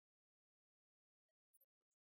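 Near silence, with a few very faint clicks late on.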